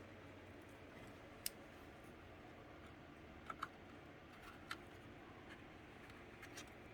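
Scattered small clicks and taps of a screw and screwdriver against the PC case's metal expansion-slot bracket as the graphics card is screwed down: one click about a second and a half in, a quick pair past halfway, then a few fainter ticks, over a quiet room hum.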